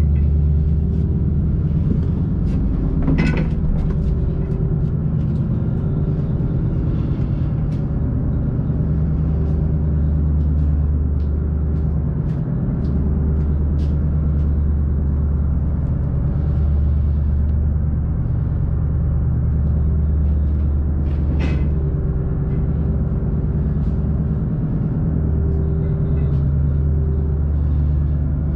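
A fishing vessel's engine and machinery running steadily below deck: a loud, deep, even hum with a higher tone that fades in and out. Scattered light clicks, with two louder knocks about three seconds in and about twenty-one seconds in.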